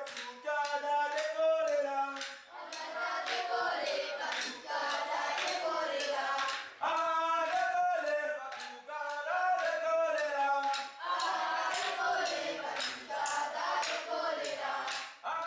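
A group of voices singing a song together in phrases.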